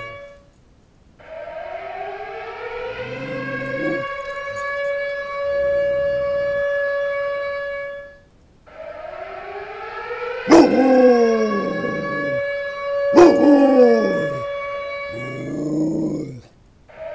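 A siren winds up and holds a steady wail twice, with a brief silence between, while a rottweiler howls along. During the second wail there are two sharp yelping howls that fall in pitch.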